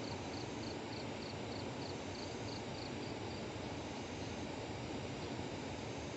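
Outdoor ambience: a steady hiss with a high, rhythmic chirping about three times a second that stops a little past halfway.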